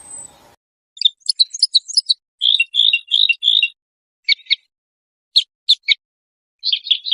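Songbird singing in short phrases of quick, high trilled notes, about five phrases with gaps between, over a dead-silent background.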